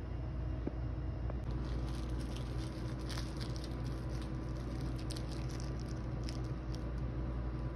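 Chihuahua chewing and gnawing on its toys and rustling the bedding: many quick, crackly little ticks and scuffs, over a steady low hum.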